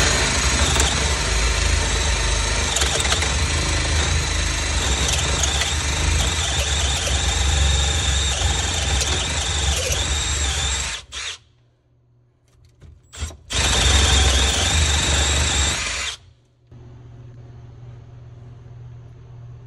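A drill spinning a PVC hub saver that reams the old pipe out of a PVC drain fitting's socket, the plastic squealing as it is cut. It runs for about eleven seconds, stops, starts again briefly, then runs for another two to three seconds before stopping, leaving a faint steady hum.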